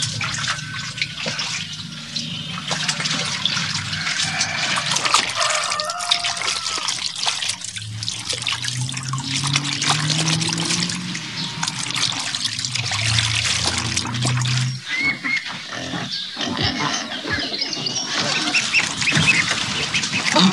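Water splashing and trickling in a metal basin during morning washing, with low farmyard animal calls through the middle.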